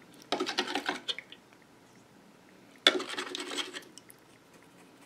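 Small gemstones clattering against a dish or container as they are handled and washed, in two short bursts of rattling about two and a half seconds apart.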